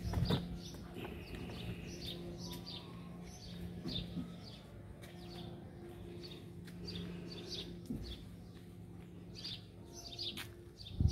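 Small birds chirping, a quick run of short high chirps repeating, over a steady low hum.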